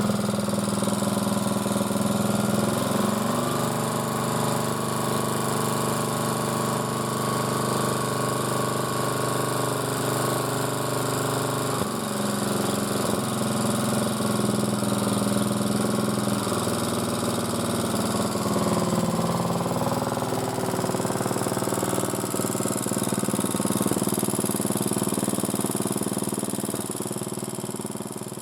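MTD motor-cultivator's small petrol engine running steadily, its speed shifting a few times, and fading out near the end.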